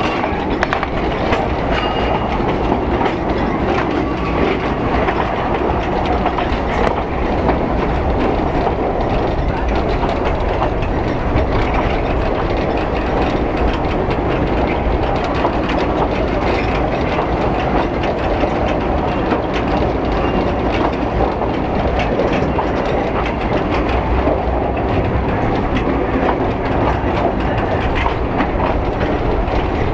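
Narrow-gauge passenger train running along the line, heard from a carriage window: a steady rumble of carriage wheels on the rails with scattered clicks.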